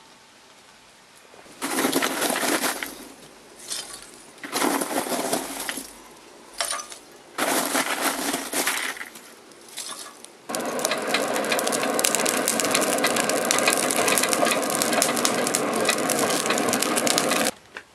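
Hand-cranked, belt-driven forge blower spun in three short spurts, then run steadily from about ten seconds in, its fan whirring as it blows air into the coal fire, with crackling from the burning coal. It stops suddenly near the end.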